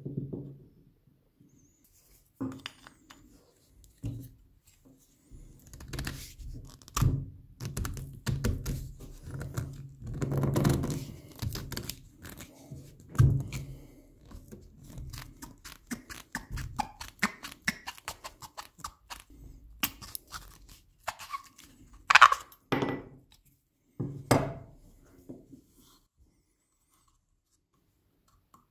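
A thunk, then water pump pliers gripping and twisting a metal end cap off an old wooden tool handle on a wooden table. The sound is irregular clicking, creaking and scraping, with a few louder knocks near the end.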